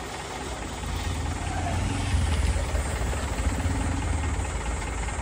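Traffic in a jam: a steady low rumble of vehicle engines idling and creeping, which grows a little about a second in.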